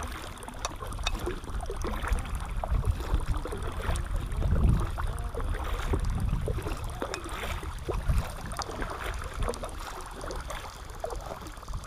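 Kayak paddle strokes: the double-bladed paddle dipping and splashing in the river water, side to side, with wind rumbling on the microphone.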